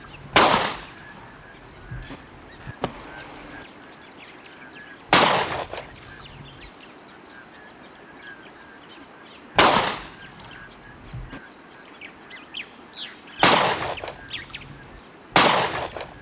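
Five shotgun shots fired at driven partridges, unevenly spaced, each a sharp crack that trails off briefly. Faint bird calls can be heard between the shots.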